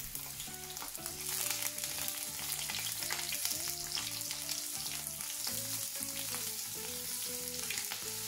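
Large prawns sizzling as they sauté in hot olive oil in a non-stick frying pan, the hiss getting louder about a second in as more prawns go into the pan. Soft background music plays underneath.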